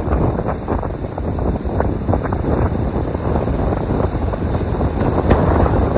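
Strong wind buffeting the microphone over the rush of storm surf, a loud, uneven roar without a break.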